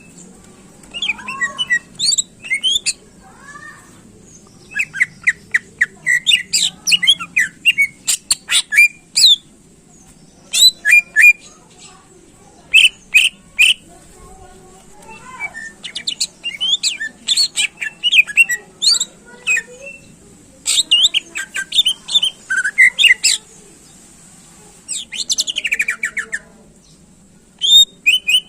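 Greater green leafbird (cucak ijo) singing at full voice: bursts of rapid chirps, trills and sharp whistles, phrase after phrase with short pauses between them.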